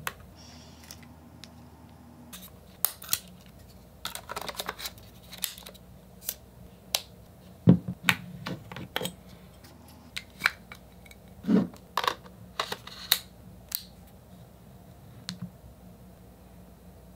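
Sony ZV-E1 mirrorless camera being handled: scattered clicks and taps from its flip-out screen, buttons and control dial, with two louder, duller knocks about eight and eleven and a half seconds in.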